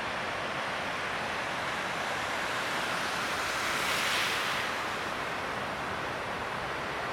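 Ocean surf: a steady wash of breaking waves that swells louder about four seconds in, as a wave breaks.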